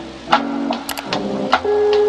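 Short cartoon-style musical sound effect: a few plain held notes that change every few tenths of a second, marked by clicks, ending on a longer held note that starts near the end.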